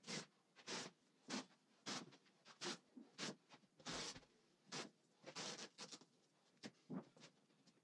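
Masking tape being pulled and pressed down by hand along the deck-to-hull seam of a varnished cedar-strip kayak. It is a run of about a dozen short, faint scratchy strokes, roughly one to two a second.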